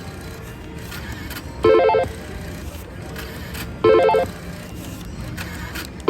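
Slot machine's electronic chime: a short warbling trill, repeated about every two seconds, over a steady casino din.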